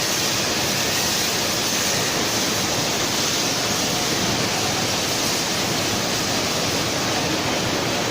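Steady, loud rushing hiss of blast-furnace plant noise, unchanging with no knocks or rhythm.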